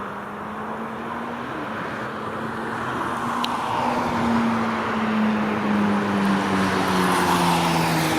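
Airbus A320's twin IAE V2500 turbofan engines on landing approach, a steady jet hum growing gradually louder as the aircraft nears, its tones slowly falling in pitch.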